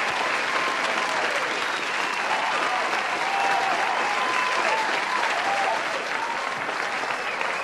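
Large audience applauding, dense steady clapping with voices calling out and cheering above it.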